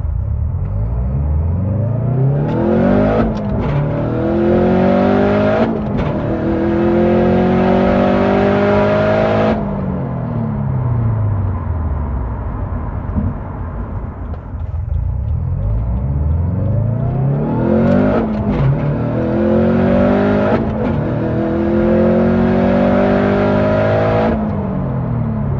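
Turbocharged Subaru WRX STI flat-four with a Turbosmart 45 mm external wastegate, accelerating hard twice. Each time the engine pitch climbs, drops once at a gear change, climbs again, then falls away when the throttle closes, with no flutter on lift-off.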